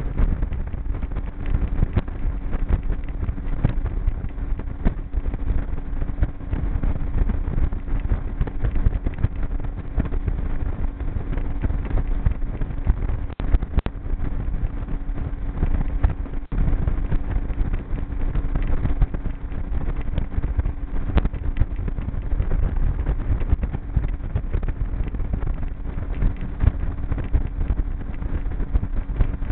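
Outboard motor of a G3 V167 fishing boat running at a steady speed under way, a constant hum over a heavy low rumble. Wind buffets the microphone throughout, with frequent small irregular knocks.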